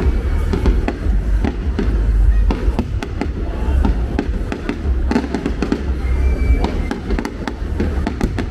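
Fireworks display going off: a rapid, continuous string of bangs and crackles over a deep rumble.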